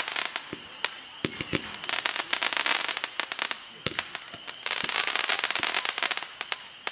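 Dragon Tails 5-shot Roman candles firing: sharp single pops, and three stretches of dense crackling about two seconds apart.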